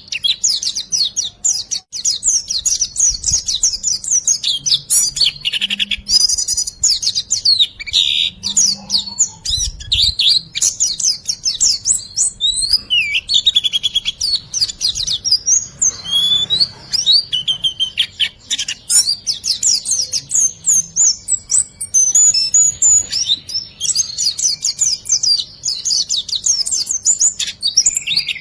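Common sandpipers (riwikan) calling: rapid runs of high, thin repeated whistled notes with short breaks between runs.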